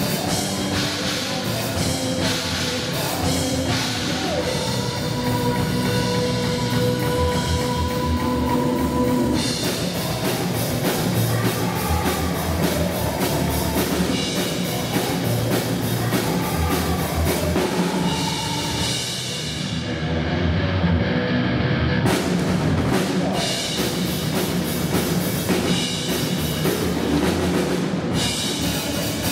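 Pearl drum kit played hard in a rock groove, kick, snare and cymbals, over a heavy rock backing track with held pitched notes. About two-thirds of the way through the cymbals drop out for a couple of seconds, then the full kit comes back in.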